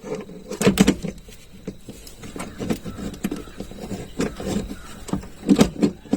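Irregular clicks and knocks of car parts and tools being handled during seat belt fitting, with a louder pair of knocks about a second in and another near the end.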